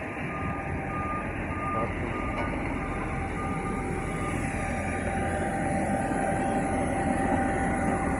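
Reversing alarm of an airport ground vehicle beeping about twice a second over a constant rumble of apron machinery and the parked airliner; about four seconds in the beeping stops and a steady whine carries on.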